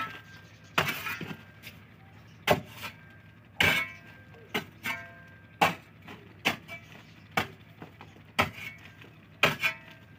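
Steel hoe blade chopping into a dry mud wall: about ten sharp blows, roughly one a second, each knocking loose crumbling earth.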